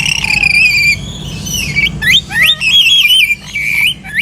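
Birds calling: a wavering whistled call for about the first second, then rising whistles and warbled calls about two seconds in, over a steady low background hum.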